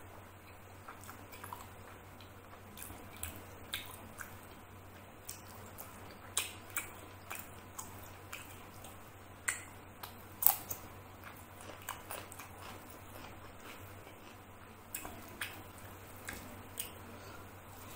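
Close-up eating sounds: mouth chewing and smacking on rice and chicken curry, with fingers squishing and scooping rice on a plate. Irregular short wet clicks, the loudest about ten seconds in.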